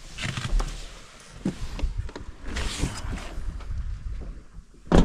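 Small waves of a flat-calm sea washing softly on the shore, in gentle surges, with wind rumbling on the microphone. A single sharp thump comes right at the end.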